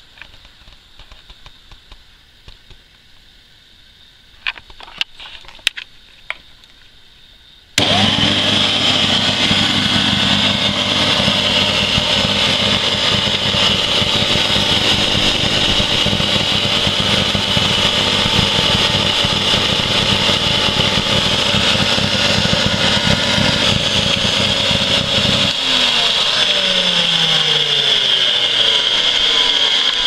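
Hoover PurePower upright vacuum cleaner switched on about 8 seconds in, after a few handling clicks. Its motor runs loudly with a high whine and a rough, grinding noise. In the last few seconds its pitch sinks as the motor slows down, the sign of a motor fouled with plaster dust and failing.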